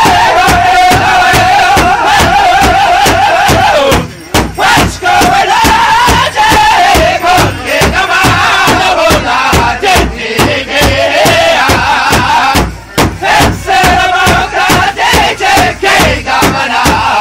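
Powwow drum group: several voices singing a high chant in falling phrases over a large hand drum struck in a steady fast beat, about four beats a second. The sound dips briefly twice, about four seconds in and near thirteen seconds.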